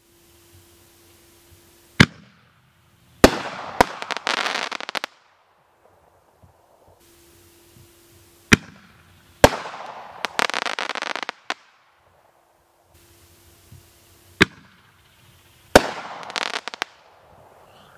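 Three consumer artillery shells from a World Class Fireworks Crackling Artillery kit, fired one after another from a mortar tube. Each launch is a sharp thump, followed about a second later by the loud break of the shell and one to two seconds of dense crackling.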